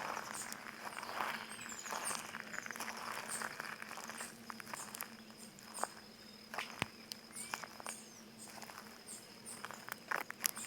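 Footsteps crunching over crystalline stone and plants, a soft crunch about every second for the first four seconds, then lighter scattered clicks. Birds chirp throughout over a steady high insect trill.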